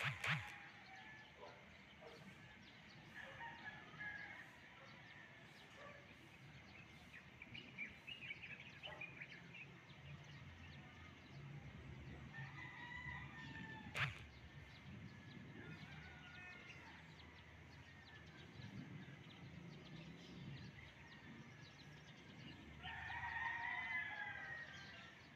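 A rooster crowing, one long crow near the end, with faint scattered bird and chicken calls before it. A sharp knock right at the start and another about halfway through are the loudest sounds.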